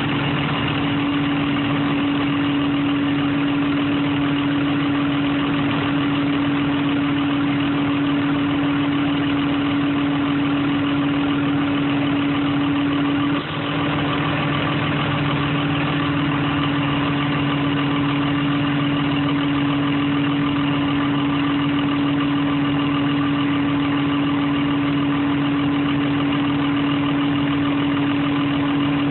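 An engine running steadily at idle, a constant hum, with a brief dip in level about halfway through.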